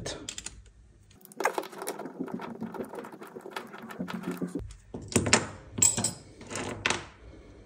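Rustling and rubbing of a wipe being worked over a hydraulic disc brake caliper to clean off leaking oil, with small clicks and clinks as the metal caliper parts are handled. A dense stretch of rubbing comes first, then a few sharper, brighter scrapes about five to seven seconds in.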